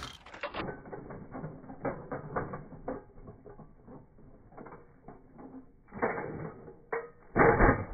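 Kick scooter's wheels rolling and clattering over rough asphalt, slowed down and deepened by slow-motion playback. About six seconds in there is a louder clatter as the scooter goes up over the bump, and near the end a loud, deep crash as it lands.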